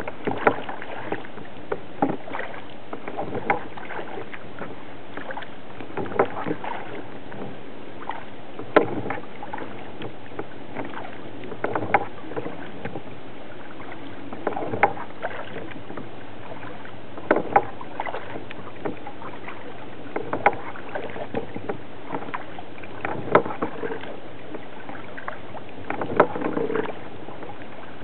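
Kayak paddle dipping and splashing in calm water in slow, regular strokes, a sharper splash about every three seconds with softer drips between, over a steady hiss.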